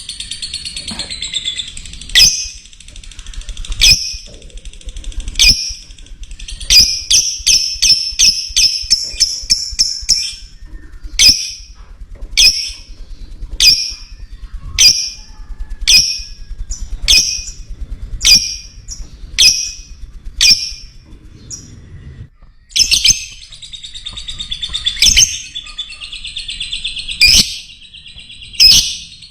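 Lovebird calling: long, rapid, shrill trilling chatter near the start and again in the last six seconds. In between come sharp single calls about once a second, with a fast run of them in the first third.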